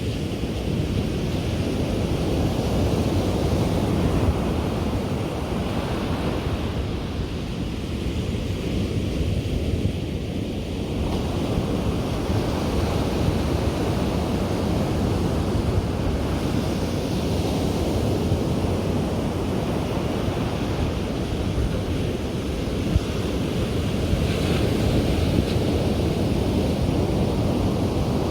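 Ocean surf breaking and washing on a beach, a continuous rush that swells and eases every few seconds, with wind buffeting the microphone.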